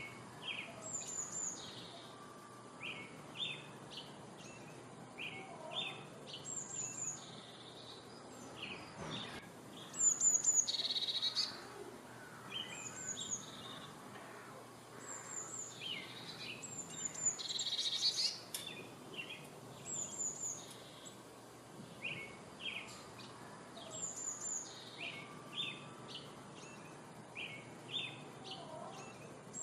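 Wild birds calling and chirping. A short, high call repeats every two to three seconds among quicker chirps, over a faint steady background hiss. Louder bursts of chattering come about ten seconds in and again near eighteen seconds.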